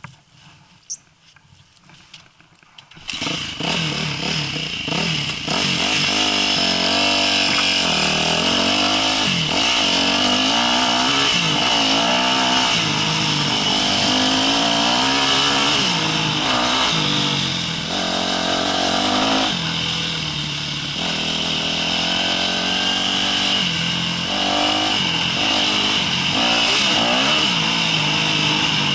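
Yamaha YZ250F dirt bike's single-cylinder four-stroke engine. After about three seconds of faint sound with a few clicks, the engine comes in loud and runs on under riding load, its pitch rising and falling with throttle and gear changes.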